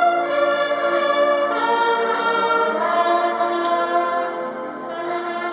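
Massed military band and bugles playing a slow passage of sustained brass chords, the notes held and changing about every second.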